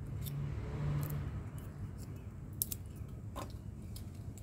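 Fingers picking apart a cracked walnut shell, with a few small, sharp cracks and clicks of shell pieces breaking and a light rustle. A steady low hum runs underneath.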